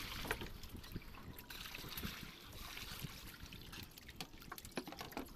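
Scattered small wet clicks and splashes from a boat hold heaped with freshly caught fish, as they shift and are handled by hand, over a faint water trickle.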